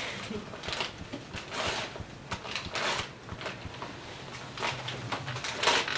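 Wrapping paper crinkling and tearing on and off as a birthday present is unwrapped by hand.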